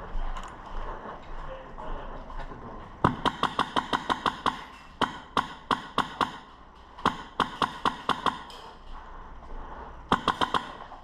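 Airsoft gun firing four rapid bursts of BBs, each a quick run of sharp clicks at roughly eight to ten shots a second, starting about three seconds in.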